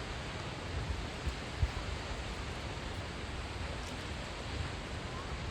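Steady outdoor rushing noise, an even hiss with irregular low rumbles of wind buffeting the microphone.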